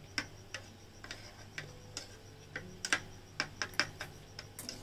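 Small metal spoon clinking and scraping against a miniature bowl while stirring yogurt: a dozen or so light, irregularly spaced clicks.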